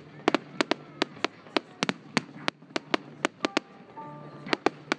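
Fireworks display: a rapid, irregular series of sharp bangs from bursting shells, about four a second.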